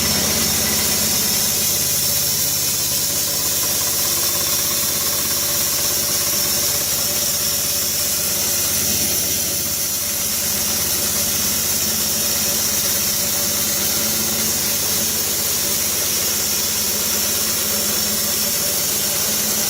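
Band sawmill's small petrol engine running steadily at mid throttle, driving the band blade through the tensioned drive belt, with a steady high hiss from the spinning blade and belt over the engine's even hum.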